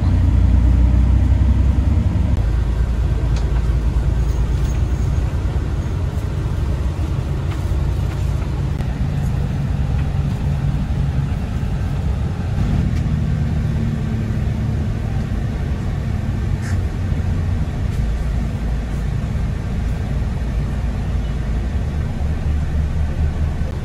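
Coach bus travelling on the road: a steady low rumble of engine and tyres, with a slight change in its tone about halfway through.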